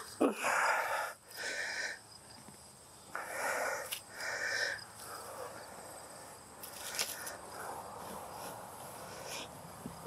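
Digging through loose garden soil to turn up potatoes: several short scraping, rustling strokes in the first half, then a quieter steady rustle, with one sharp click about seven seconds in.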